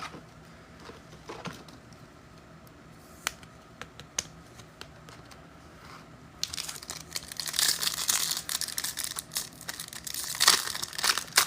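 Trading-card pack wrapper being torn open and crinkled, starting about six seconds in, after a few faint clicks of cards being handled.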